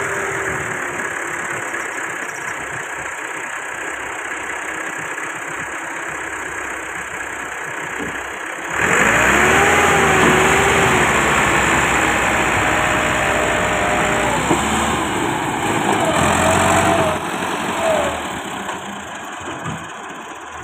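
Massey Ferguson 385 tractor's Perkins diesel engine running, then revved hard from about nine seconds in for some eight seconds, its pitch rising and falling, before easing back down. The revving is the engine straining under load to drag a loaded sand trolley out of soft sand.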